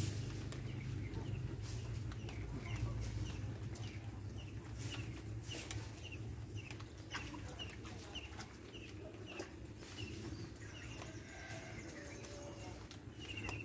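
A bird calling a run of short, falling chirps, about two a second, that die away about ten seconds in, over a steady low hum.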